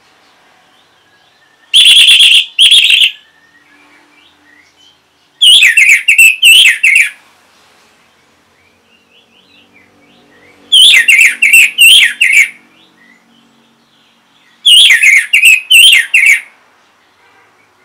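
Orange-headed thrush singing in four loud bouts several seconds apart, each a rapid run of shrill, up-and-down whistled notes lasting about a second and a half, with faint chirping in between.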